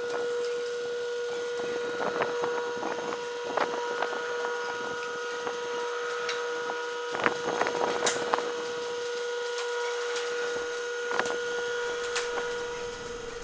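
Motorized bifold hangar door opening: a steady motor hum, with scattered creaks and clicks from the metal door panel and hinges as it folds up.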